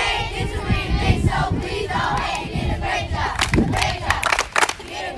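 A crowd of schoolchildren shouting and cheering together, with a run of sharp claps in the second half.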